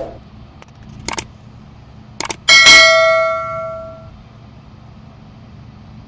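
Subscribe-button sound effect: two mouse clicks about a second apart, then a bell ding that rings out and fades over about a second and a half.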